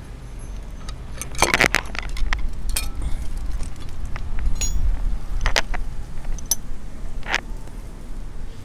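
Metal hand tools clinking and rattling as they are picked out of a tool kit and handled at a scooter's front brake caliper: several sharp metallic clinks spaced about a second apart, the loudest cluster about a second and a half in.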